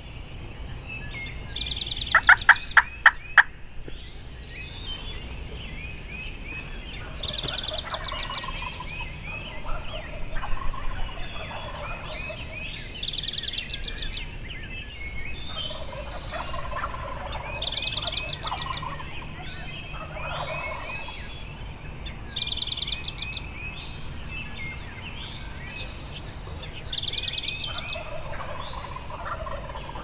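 Eastern wild turkey gobblers gobbling over and over, calls coming about every five seconds and overlapping one another, with a quick series of sharp, loud notes about two seconds in.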